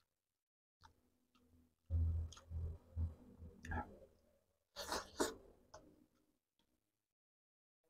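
Close-up eating sounds: a man chewing and smacking his lips over a mouthful of catfish stew and rice eaten by hand. The sounds come as irregular soft thuds and sharp clicks, with a cluster about a second in and another near the middle, and dead silence between.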